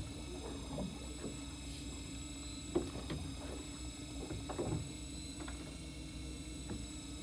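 A fishing boat's engine hums steadily, with small splashes and knocks against the hull. The sharpest knock comes about three seconds in.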